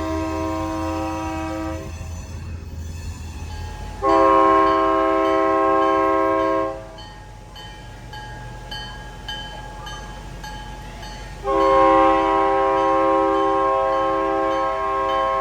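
Diesel locomotive's multi-tone air horn sounding in long blasts: one blast ending about two seconds in, a blast of nearly three seconds a few seconds later, and another starting near the end. The locomotive's diesel engine runs low underneath.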